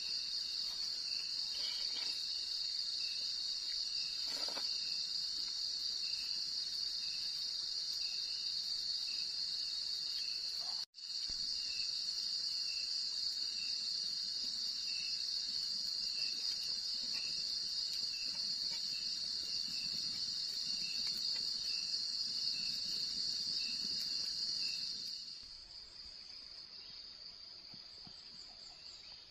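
Chorus of night insects in tropical forest: a steady, shrill high drone with a second, lower insect pulsing about once a second. The sound breaks off for a moment about eleven seconds in, and about twenty-five seconds in it drops to a quieter, thinner insect sound.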